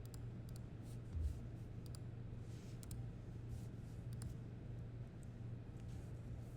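Scattered light clicks of a computer mouse and keyboard in use, over a steady low hum, with one soft thump about a second in.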